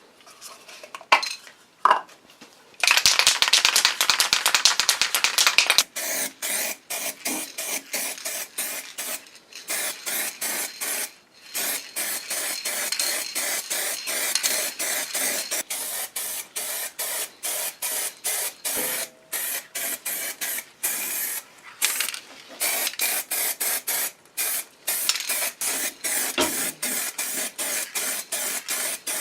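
Abrasive scrubbing on metal, going by the rust removal on the wheelbarrow. Two sharp knocks come near the start, then a few seconds of very fast continuous scrubbing. After that it settles into steady back-and-forth strokes, several a second.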